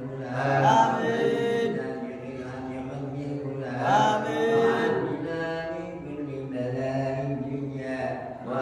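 A man chanting an Arabic supplication into a microphone, in long melodic phrases. Each phrase rises in pitch at its start, about half a second in and again about four seconds in.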